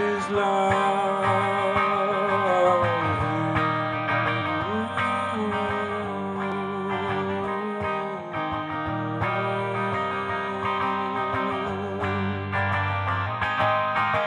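Live music: hollow-body archtop electric guitar playing a slow song, with a long held melody line on top that wavers and slides between a few notes, each held for a few seconds.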